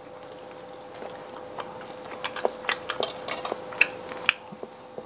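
Scattered light clicks and taps from eating and handling food at the table, over a faint steady hum.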